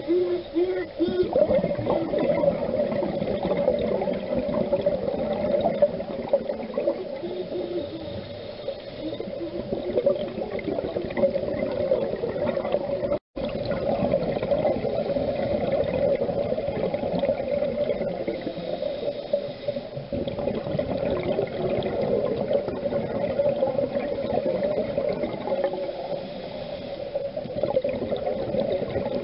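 Underwater sound through a diver's camera: a steady rush and gurgle of water and bubbles. It breaks off briefly about 13 seconds in.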